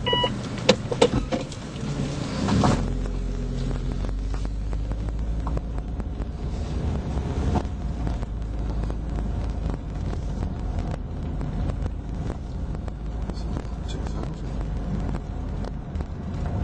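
Car driving slowly, heard from inside: steady engine and road rumble that grows fuller about three seconds in, after a couple of sharp knocks near the start.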